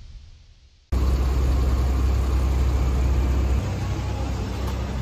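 Music fades out, then about a second in a sudden cut to a car's steady low rumble with a hiss of road noise above it.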